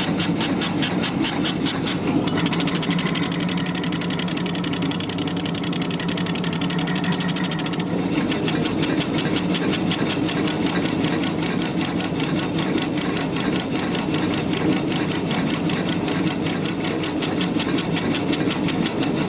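Laser engraver running a job: its gantry moving back and forth in a fast, even ticking rhythm over a steady hum. The ticking falters about two seconds in and comes back strongly about eight seconds in.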